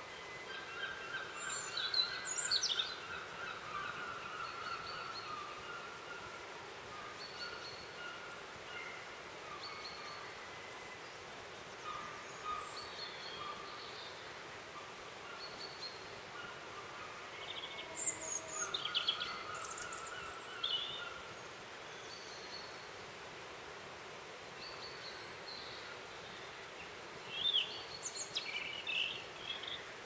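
Small songbirds calling and singing over a steady background hiss: short high notes and whistled phrases throughout, with louder clusters of sharp chirps about two seconds in, around the middle, and near the end.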